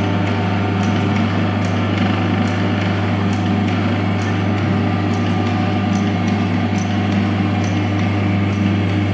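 Motor-driven sectioned engine display running, a steady electric hum with a regular light ticking from its moving mechanism.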